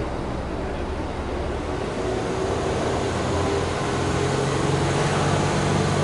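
Exhaust note of a Subaru Impreza S-GT's turbocharged EJ20 flat-four running at idle, heard at the tailpipe; the engine note grows slightly louder in the second half.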